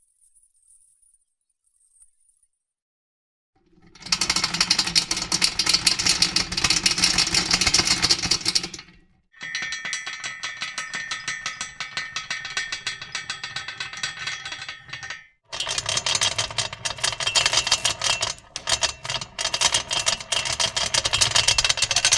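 Near silence for about four seconds, then three mechanical sound effects one after another, each several seconds long: fast, dense rattling and clattering of machinery. The middle one is quieter and carries a steady whirring tone under the rattle.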